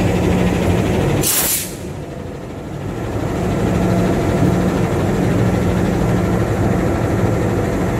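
CC206 diesel-electric locomotive idling with a steady hum. About a second in, a short, loud burst of compressed air hisses out, typical of an air-brake release.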